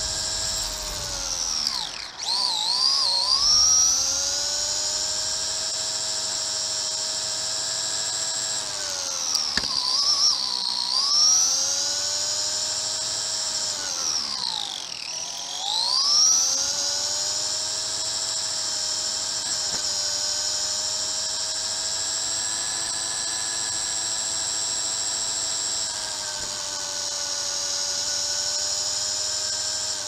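Remote-control car's electric drive motor and gears whining, picked up by a camera mounted on the car. The pitch holds steady at speed, then sags and climbs back three times as the car slows and speeds up again: a few seconds in, about a third of the way through, and about halfway through.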